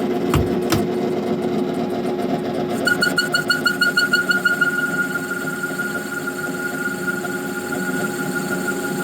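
Clausing Colchester metal lathe running steadily at 375 RPM on the low speed of its two-speed motor, taking a 30-thousandths cut. Two light knocks come just after the start, and a ringing tone pulses about six times a second from about three to five seconds in.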